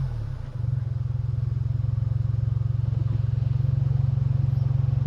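Ford Focus 1.5 EcoBoost three-cylinder turbo petrol engine on its stock exhaust, dropping back from a rev in the first half second, then idling steadily with an even low pulse.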